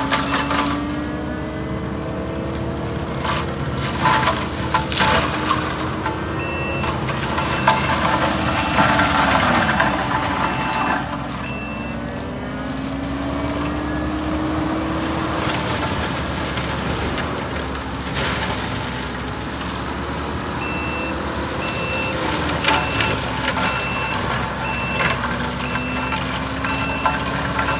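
Kubota skid steer working land: its diesel engine runs hard, the pitch sagging and recovering under load, with wood cracking and splintering at times. A reversing alarm beeps steadily in two stretches, in the middle and near the end.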